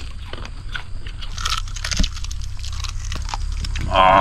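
Close-up crunching and chewing of a whole fried rice-field rat, many small crisp cracks as it is bitten and chewed. A short vocal sound near the end.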